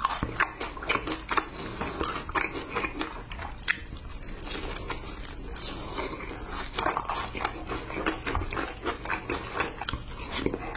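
Close-miked biting and chewing of sauced Korean fried chicken, with many irregular crisp clicks and wet crunching sounds.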